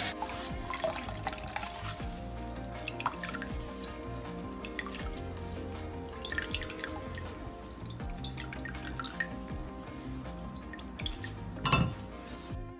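Almond milk dripping and trickling from a squeezed straining cloth through a mesh sieve into a plastic measuring jug, over background music. There is a short, louder burst of liquid sound near the end.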